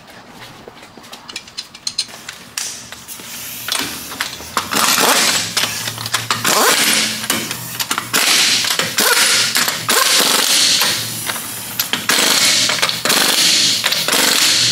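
Pneumatic impact wrench rattling as it runs the lug nuts down on a Mazda 3 alloy wheel, in several bursts with short pauses between nuts, starting about four seconds in. Before that, a few light clicks as the nuts are put on by hand.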